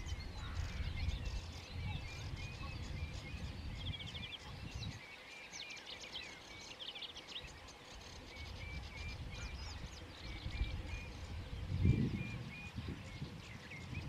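Marsh ambience: small birds calling and singing, one repeating a short note over and over, over a low uneven rumble that swells briefly about twelve seconds in.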